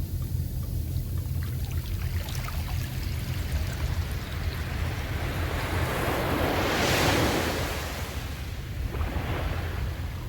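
Sea waves washing onto the shore, one wave building and breaking loudly about seven seconds in, then receding, over a steady low rumble of wind on the microphone.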